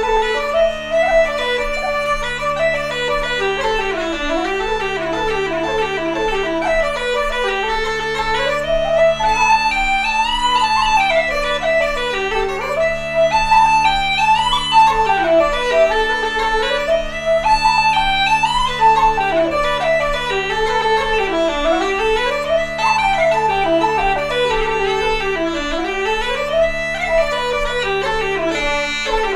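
Uilleann pipes and a wooden flute playing an Irish jig together. The pipes' drones sound steadily under the quick, evenly paced melody.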